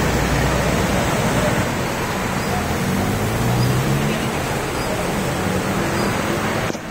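Vehicles ploughing through a flooded street: a steady rush of water with the drone of engines, a fire engine's engine growing louder as it passes around the middle.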